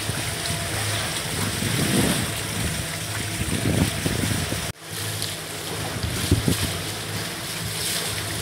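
Wind buffeting the microphone over water rushing and splashing along the hull of a sailing catamaran under way. The sound cuts out for an instant a little past halfway, then resumes.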